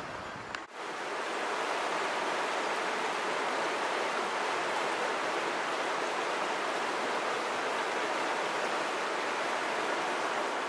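Fast, shallow mountain river rushing over a stony riffle: a dense, steady rush of water that cuts in abruptly under a second in.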